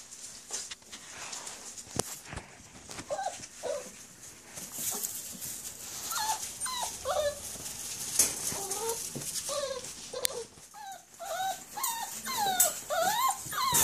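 Whippet puppies whimpering and yipping in short, high, squeaky cries that come more and more often toward the end, with scuffling in wood-shaving bedding.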